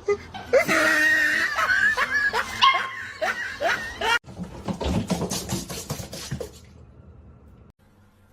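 Dog vocalising in a run of short falling yelps for about four seconds, then after an abrupt break a quick series of rough noisy sounds that fade out near the end.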